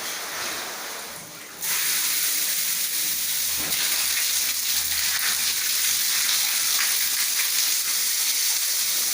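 Shower water spraying from a multi-outlet thermostatic shower; about one and a half seconds in, the sound jumps suddenly to a louder, steady hiss as the diverter switches the flow to another outlet.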